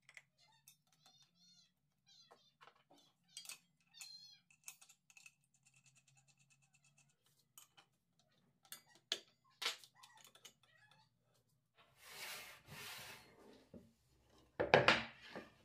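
Faint scattered clicks and light knocks of a circular saw being handled as its blade and guard are fitted, with a few short squeaks early on and a brief run of fine clicking. Later a wooden board rubs and knocks against a wooden jig, with the loudest knocks near the end.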